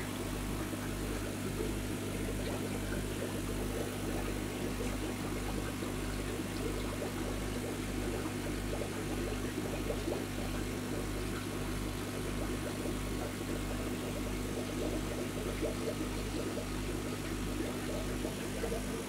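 Steady hum of aquarium pumps and filtration with a regular low throb, and a crackle of moving, splashing water over it.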